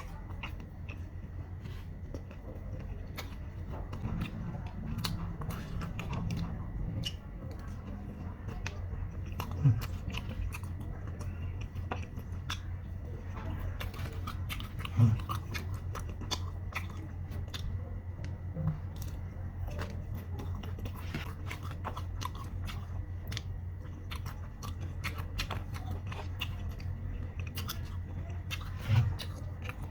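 Close-up chewing and crunching of fried chicken, with many small wet clicks and crackles over a steady low hum. A few short, louder low thuds stand out, about a third of the way in, at the halfway point and near the end.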